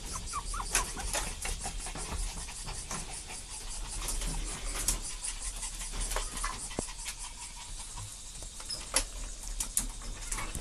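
Chihuahua puppies scrabbling about in a wire pen: irregular clicks and rattles of claws and paws on the metal mesh, with a few faint high squeaks about a second in.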